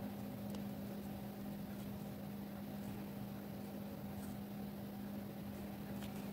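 A faint steady low hum from something running in the room, with a few faint ticks over it.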